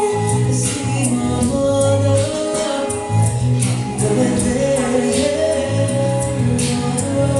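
A live band playing a song: a voice singing over sustained instrumental chords and a bass line, with a steady percussion beat.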